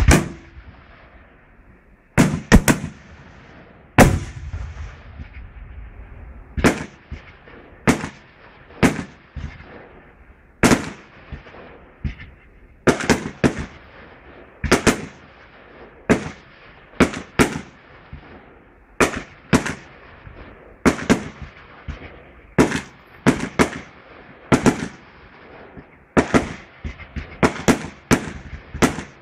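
Aerial fireworks bursting in a steady run of loud, sharp bangs, some in close pairs, each with an echo trailing after it. The bangs come roughly once a second and pack closer together near the end.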